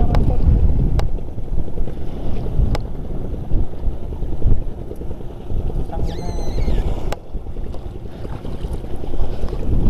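Wind buffeting the microphone over sea water lapping around a wading angler, with a few sharp clicks from handling the rod and tackle.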